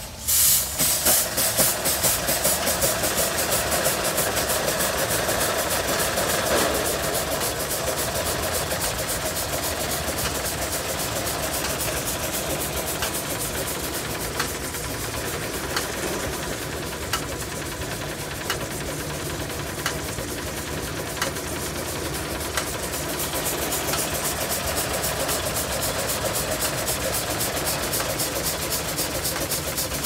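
Steam traction engine starting to run about half a second in, its exhaust beating fast and even over a steam hiss, with a few louder beats at first, as it drives a belt-driven saw bench.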